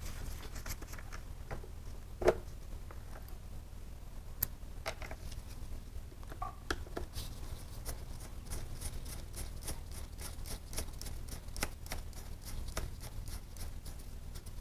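Gloved hands working at a motorcycle's battery under the seat: scattered small clicks and rattles of the leads and terminal fittings, with a sharper knock about two seconds in and a busier run of light ticks in the second half.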